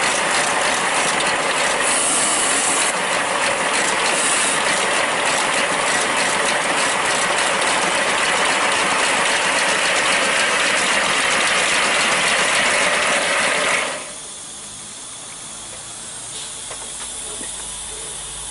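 A 5-inch gauge live-steam BR Standard Class 4 tank locomotive running on a rolling road: a fast, steady mechanical clatter of wheels and motion with steam hiss, its axle pump feeding the boiler. About fourteen seconds in the running stops suddenly, leaving a softer steam hiss.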